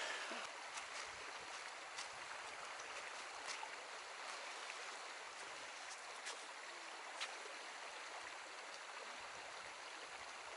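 Shallow mountain river rushing steadily over stones, with a few faint ticks.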